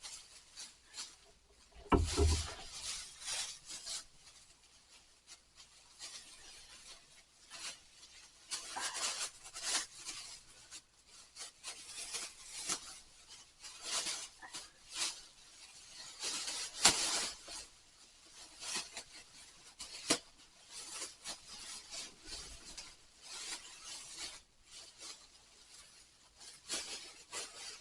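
Plastic bag rustling and a long coaxial cable rubbing and scraping as it is handled and pushed into the bag, in irregular bursts, with a thump about two seconds in.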